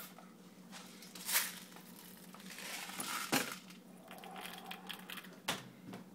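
Plastic airsoft BBs being poured into a small cup: a rattling trickle with several sharper clicks scattered through it.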